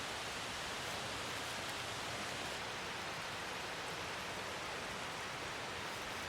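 Light rain falling, a steady even hiss with no gusts or breaks.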